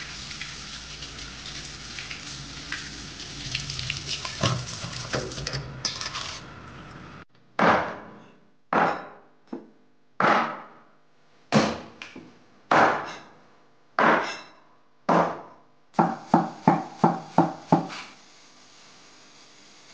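Tap water running and splashing into a stainless steel bowl for about seven seconds. Then a cleaver chops down hard on a thick wooden chopping board, about one chop a second, ending in a quicker run of about seven chops.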